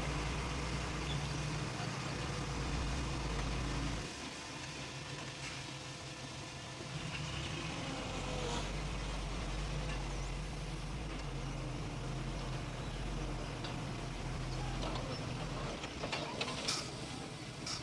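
Heavy diesel earthmoving machinery running with a low, steady engine drone. The drone drops away about four seconds in and comes back a couple of seconds later, and a few short knocks sound near the end.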